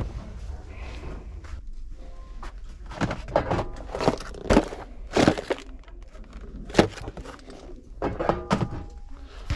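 Handling noise: a string of about eight irregular thunks and knocks as items on store shelves and the handheld camera are moved about, the loudest a little past halfway.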